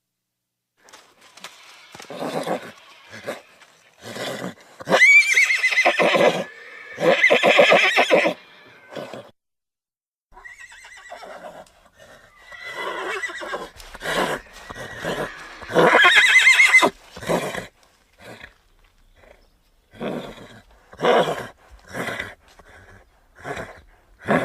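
Horse whinnying: three loud neighs about five, seven and sixteen seconds in, with shorter, quieter horse sounds between and after them.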